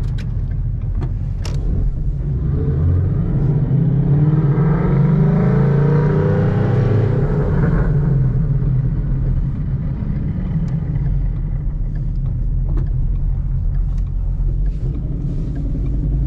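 Ford Mustang Boss 302's 5.0-litre V8 running through long-tube headers and side pipes with the restrictors removed: a loud, deep exhaust gurgle. About three seconds in, the engine note rises and swells for a few seconds, then drops back.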